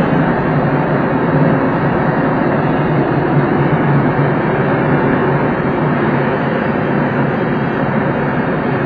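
Steady rush of air around a glider's cockpit canopy in flight on aerotow, with a low steady hum beneath it.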